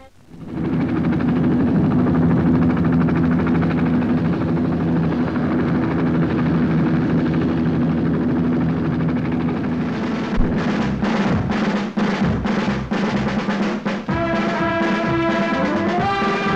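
Military helicopters flying over in formation, a steady rotor and engine drone under film-score music. About ten seconds in a steady drum beat of about three strokes a second comes in, and a rising melody joins near the end.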